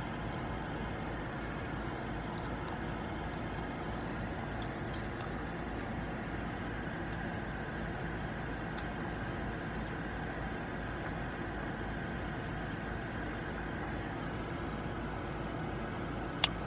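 Steady hum inside a running car's cabin, with faint crunchy chewing of fried chicken, and one sharp click near the end.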